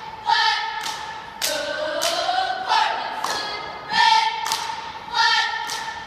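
Cheer squad chanting a cheer together in unison, with sharp hits marking the beat about once a second.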